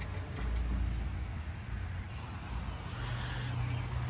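A car engine running at low speed: a low rumble, with a steadier hum setting in about three seconds in.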